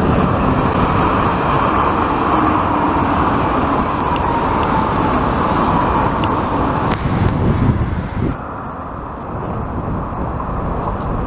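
NS VIRM double-deck electric train passing close at speed: loud rolling rumble of wheels on rail with a steady whine over it, dying down about eight seconds in as the train clears.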